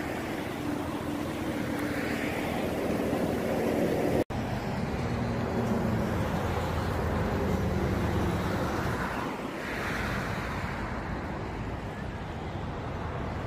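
Steady outdoor noise with wind buffeting the microphone over a low rumble, broken by a brief dropout about four seconds in.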